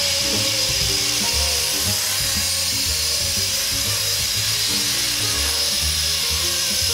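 Blade SR electric RC helicopter in flight, its motor and rotor giving a steady high whine, over background music with a changing bass line.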